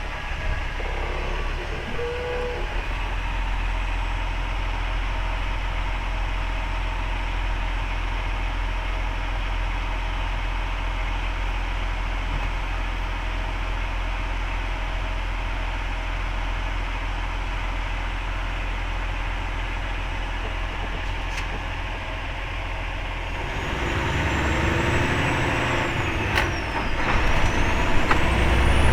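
Logging truck's diesel engine running steadily with road noise. About three-quarters of the way through it grows louder and rougher, and a high whine falls and then rises.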